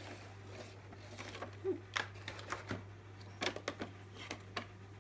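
Scattered light clicks and taps of a clear plastic tray and cardboard box being handled as an action camera is unpacked, over a steady low hum.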